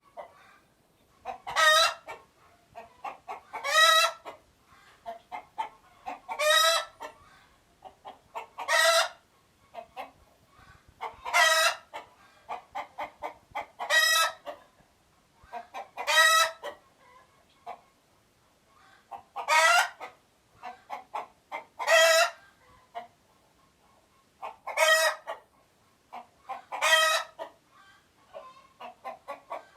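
Chicken alarm calling: runs of short clucks, each building to one loud, sharp call, repeating about every two and a half seconds.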